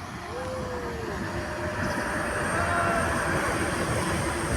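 A train passing on the line along the shore, its rumble growing steadily louder, with a thin high steady whine joining about two seconds in.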